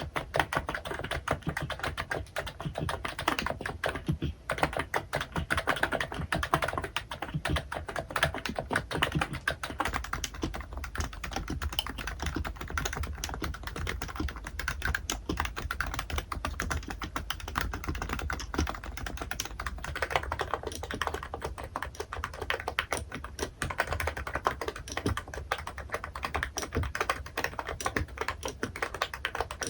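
Fast, continuous typing on an electro-capacitive (Topre-style, 무접점) keyboard: a dense stream of keystrokes with only brief let-ups.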